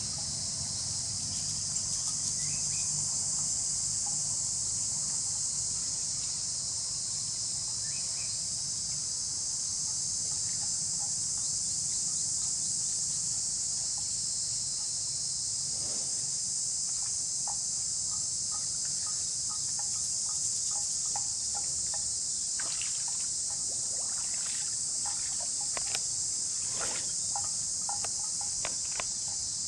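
Steady high-pitched drone of an insect chorus. In the second half it is joined by scattered short tearing and crunching sounds, a water buffalo cropping and chewing grass.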